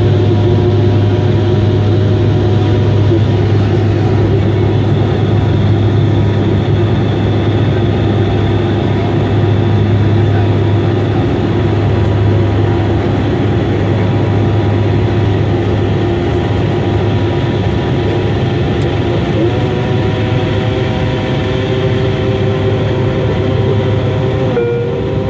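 Cabin noise of a Bombardier Q400 (Dash 8) turboprop on approach with its landing gear down: the loud, steady drone of its six-bladed propellers and PW150A engines, with a strong low hum. The tone shifts slightly near the end.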